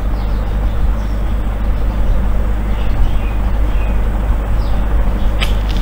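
Steady low rumble of background noise with no speech, broken by a couple of sharp clicks near the end.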